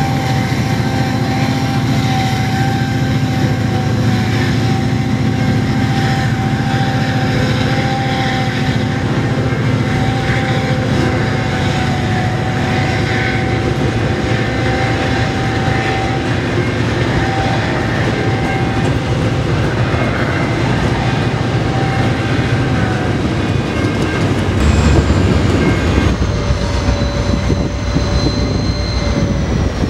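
EMD diesel-electric locomotives hauling a heavy freight train, their engines running with a steady low drone and a constant whine over it. Near the end the sound changes: the low drone deepens, a high whine slowly falls in pitch and a new steady tone comes in.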